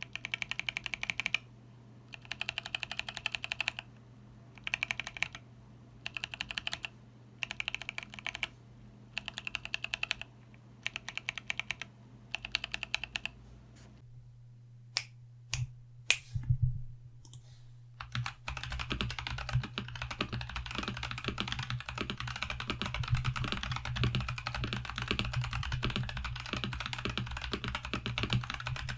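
Mechanical keyboard with stock Boba U4T tactile switches and GMK Ishtar clone keycaps, foam and tape modded, being typed on. For about the first half it goes in short bursts of key presses with pauses between them. A few single key clicks follow, then continuous fast typing.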